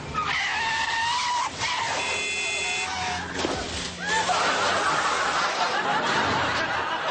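Car collision sound effect: a long squeal of tyres, then a short tone and a few knocks. From about four seconds in, a studio audience laughs.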